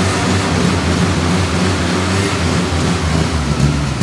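Engine of a home-built off-road prototype buggy running steadily, loud and close.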